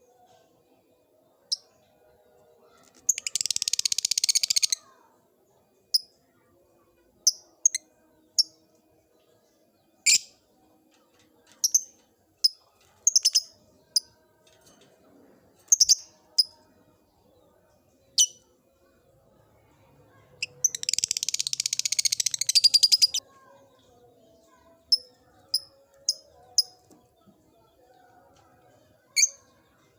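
A lovebird chirping in short sharp notes every second or two, with two rapid rattling trills, one a few seconds in lasting under two seconds and a longer one of about two and a half seconds past the middle: the beginning of the long continuous chatter that lovebird keepers call "ngekek".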